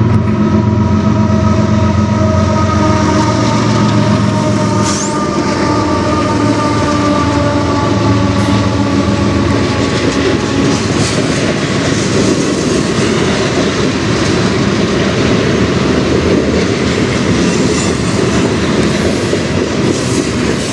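A freight train passing close by. For the first half the diesel locomotives' engines drone, dropping slightly in pitch as they go past. Then the cars roll by with wheels clacking over the rail joints.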